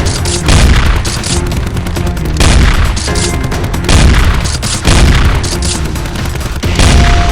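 Loud action soundtrack: music with repeated heavy booming hits about every second or so.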